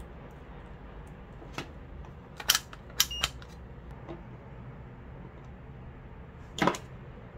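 Several short, sharp clicks and taps of handling as alligator clips and multimeter probes are fitted to the terminals of a DC-DC step-down module, the loudest about two and a half seconds in and near the end, over a faint steady low hum.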